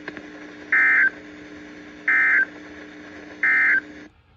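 Emergency Alert System end-of-message (EOM) tones on weather radio: three short, loud digital data bursts about a second and a third apart. They sound over a steady radio hiss and hum that cuts off suddenly about four seconds in as the transmission ends.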